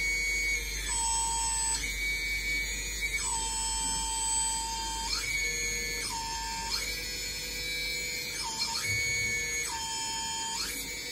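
High-pitched whine from the electric hydraulic pump of a Lesu RC hooklift truck. Its pitch drops sharply five times and holds low for half a second to two seconds before rising back, as the pump comes under load each time a hydraulic valve is worked.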